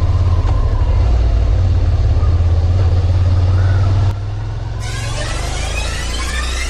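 Suzuki Gladius 650 V-twin motorcycle engine running at a steady speed while riding. About four seconds in it drops in level, and near the end music with rising sweeps comes in over it.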